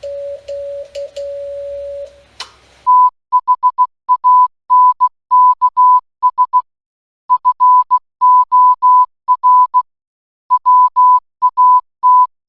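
Morse code (CW) tones. For about two seconds a lower tone is keyed over a faint hum. Then, after a click, a clean higher-pitched tone keys out dots and dashes.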